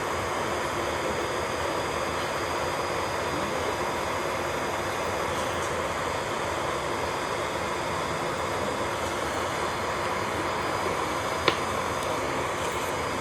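A small electric motor running steadily with a faint high whine, the kind from nail-salon equipment such as an electric nail drill or a dust collector. One sharp click sounds near the end.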